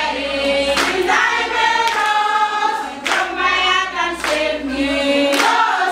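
A group of women singing together in long held notes, with a few sharp hand claps now and then.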